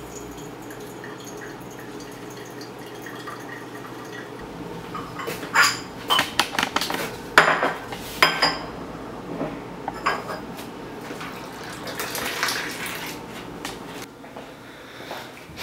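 Porcelain cups and saucers clinking and clattering as they are handled, a string of sharp clinks starting about five seconds in. Before that, a faint steady trickle of hot water poured from a kettle over a coffee filter.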